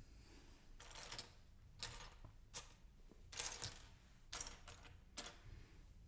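Loose plastic LEGO pieces clicking and clattering faintly as hands sift through them, in short bursts about once a second.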